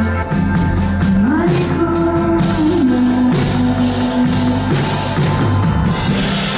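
Pop-rock song with a singer's voice holding and gliding between long notes over bass and drums.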